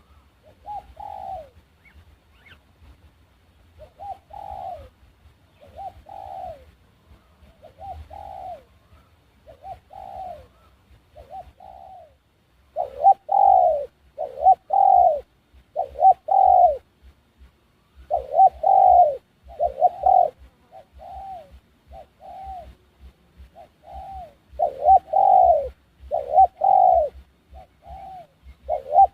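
A dove cooing: a long series of short, falling coo notes, about one every second or so. The coos are soft at first and much louder from about halfway through.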